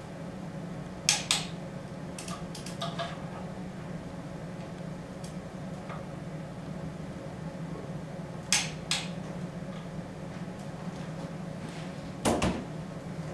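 Sharp metallic clicks from a wrench being worked on the bolts of a Porsche Cayman S cylinder head: two pairs of clicks several seconds apart with a few lighter ticks between, then a duller knock near the end. A steady low hum runs underneath.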